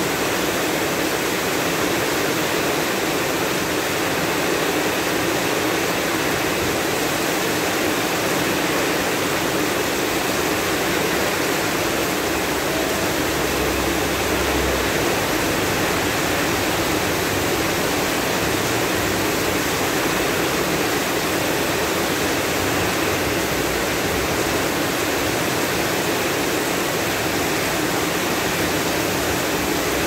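Heavy rain pouring steadily onto a street and rooftops: a dense, even hiss. About halfway through, a brief low rumble rises under it.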